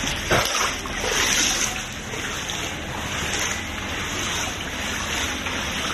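Floodwater splashing and sloshing over a steady rushing hiss, with one brief louder splash about a third of a second in.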